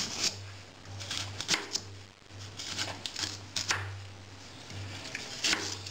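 Kitchen knife slicing through a ripe pear and knocking on a plastic cutting board: short, crisp cutting strokes at an uneven pace, several in quick succession near the start and middle.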